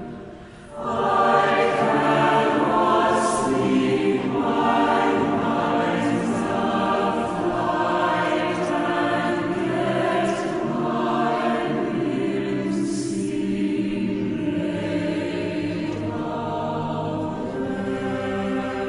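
A virtual choir of some 2,000 separately recorded voices mixed together, singing a slow a cappella choral piece in sustained, swelling chords. The sound drops away briefly about half a second in before the chords come back in.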